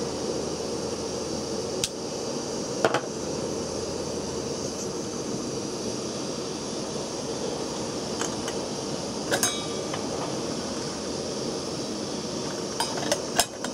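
Campingaz cartridge stove's gas burner hissing steadily under a pot of water that is heating toward the boil. A few sharp metallic clicks and clinks come over it, two in the first few seconds, one with a brief ring a bit past halfway, and several near the end.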